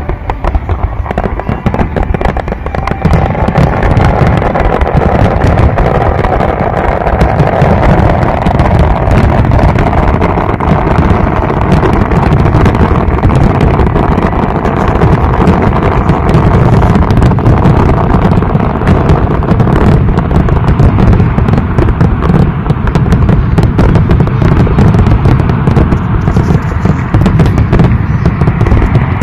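Fireworks display: a dense, continuous barrage of bangs and crackles that builds up over the first few seconds and then stays loud.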